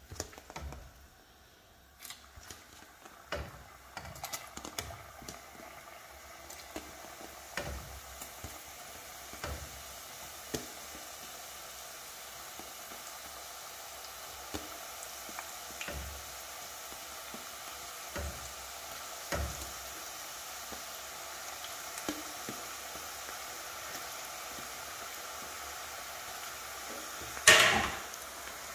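Namak pare dough pieces deep-frying in hot oil: a steady sizzle that builds up a couple of seconds in and holds, with occasional light knocks and one louder knock near the end.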